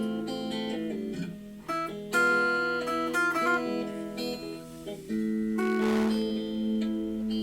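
Acoustic guitar playing a Spanish-style blues in A minor: picked single notes and held bass notes, with strummed chords about two seconds in and again about six seconds in.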